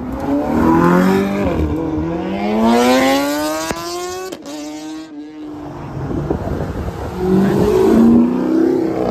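Sports car engine accelerating hard, its pitch climbing steadily for about three seconds up to a gear change, with a sharp crack about four seconds in. The engine revs again near the end.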